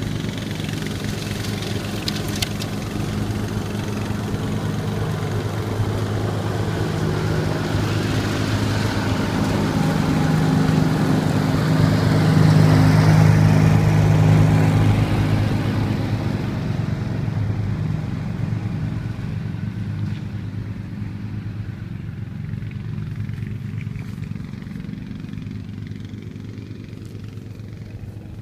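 Ride-on lawn mower's engine running steadily while mowing. It grows louder to a peak about halfway through, then slowly fades as it moves away.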